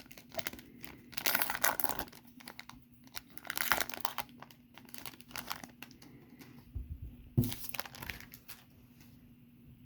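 Wrapper of a 2017 Topps Series 1 baseball card pack being torn open and crinkled by hand, busy crackling for the first few seconds, then a few scattered rustles that die away near the end.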